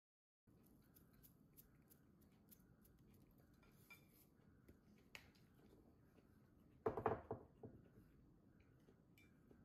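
Quiet room tone with a few faint clicks, then a short clatter of metal cutlery against a china plate about seven seconds in.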